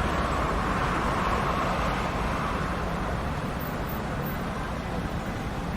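City street traffic noise: a steady rumble of passing cars, with one vehicle louder at first that fades away about halfway through.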